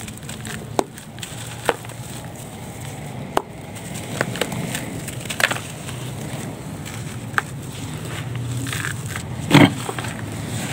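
Damp sandy mix being squeezed and crumbled by hand into a plastic tub, a gritty rustle of falling grains with scattered sharp snaps as clumps break. The loudest is a snap with a thud near the end.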